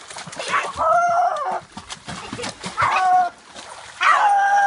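Three drawn-out animal calls at a fairly steady pitch, each lasting about half a second to a second, with short gaps between them.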